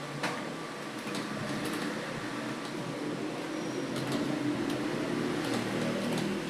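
Computer keyboard being typed on at a slow, uneven pace: scattered key clicks, about two a second, over a steady background hum.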